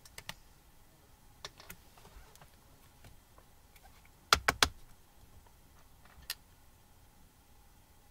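Playing cards being handled: scattered light clicks, then a cluster of three sharp snaps about four seconds in and a single click about two seconds later.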